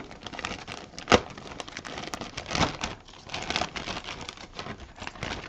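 Thin clear plastic bag crinkling and crackling irregularly as hands handle a bagged plastic model-kit sprue, with one sharp click about a second in.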